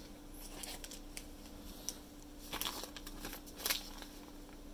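Thin clear plastic packaging bags crinkling as they are picked up and handled, in soft scattered rustles with a few sharper crackles about two and a half and three and a half seconds in.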